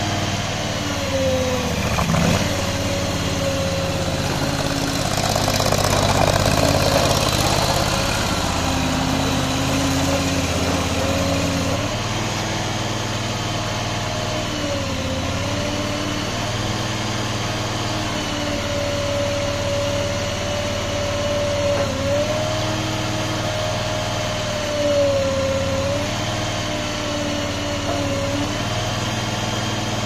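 Hightop HT430 mini tracked skid steer loader's engine running steadily, its pitch dipping briefly several times as the loader arm and tracks are worked.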